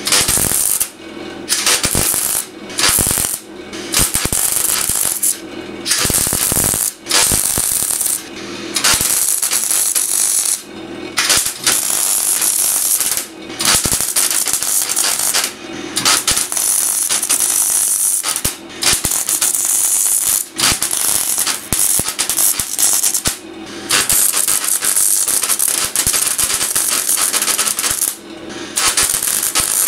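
Electric welding arc crackling in bursts of one to three seconds with brief stops between them, stitch-welding a sheet-steel patch.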